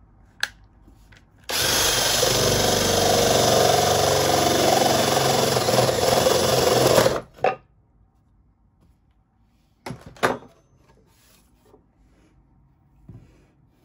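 Ryobi cordless drill spinning a spade bit that bores into a wooden board. It runs steadily for about five and a half seconds and then stops; two short knocks follow a few seconds later.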